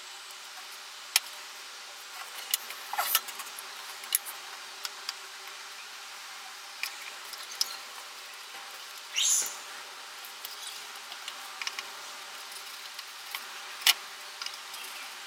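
Scattered small clicks and taps and two brief scrapes of hand work with small spruce pieces, over a steady hiss; the loudest scrape comes about nine seconds in.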